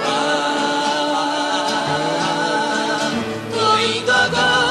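Music with singing: a sung melody with a wavering voice over instrumental backing.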